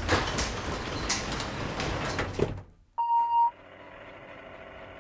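Elevator door sliding shut with a long rushing noise for about two and a half seconds, then a short single beep about three seconds in, followed by the steady hum of the elevator car running.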